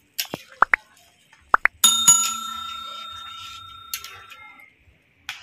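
Subscribe-button overlay sound effects: a few quick rising pops and clicks, then a bell ding about two seconds in that rings and slowly fades, and another click near the end.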